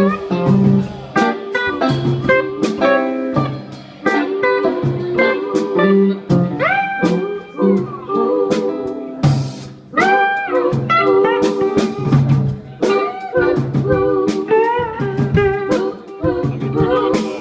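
Live band playing a bluesy jam: electric guitar lines with notes that slide up in pitch, over drum hits.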